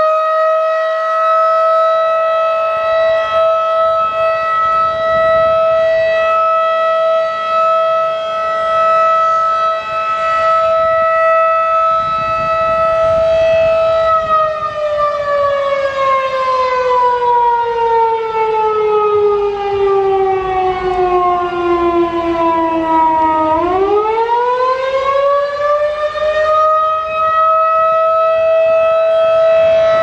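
Federal Signal 2001-DC rotating electromechanical outdoor warning siren sounding a steady single tone for about fourteen seconds, then winding down, its pitch falling slowly for about nine seconds. It then spins back up to full pitch and holds steady: the changeover between the two cycles of a short alert test.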